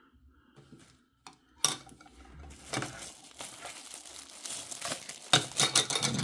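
Plastic packaging crinkling and rustling, with clicks and knocks of handling. It starts with a sharp knock after about a second and a half of near quiet.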